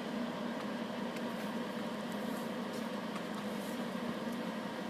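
Steady hum and hiss of a small fan, most likely the soldering fume trap running, with faint light ticks over it.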